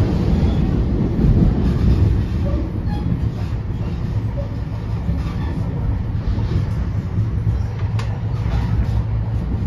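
Inside a moving NJ Transit Comet passenger coach: the steady low rumble of the train running along the track. A single sharp click comes near the end.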